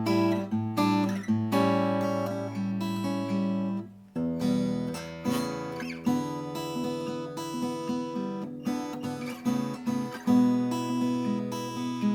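Steel-string acoustic guitar played, chords strummed and picked and left to ring. The chord changes after a brief break about four seconds in, and again near the end.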